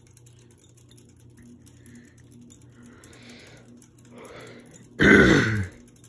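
Hampton Bay Gazebo II ceiling fan running in reverse on high speed: a steady low motor hum with a faint pulse about twice a second. About five seconds in, a person makes a short, loud vocal sound that falls in pitch.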